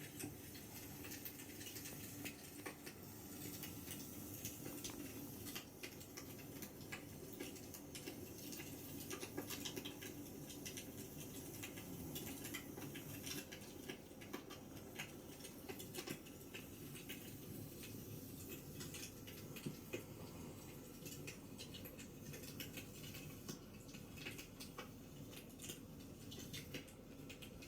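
A sleeping Shiba Inu snoring, under the frequent small pops and crackles of a wood fire.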